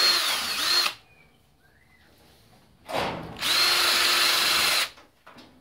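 Cordless drill spinning a wire brush against an MGB B-series engine block, scrubbing off old black paint. One burst stops about a second in. A second runs for about two seconds from near the three-second mark, its motor whine rising as it spins up and then holding steady.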